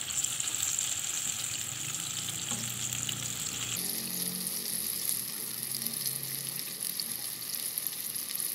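Flour-coated chicken pieces deep-frying in hot oil in a pan, a steady sizzle while a wire skimmer moves them about. The sizzle changes abruptly about four seconds in.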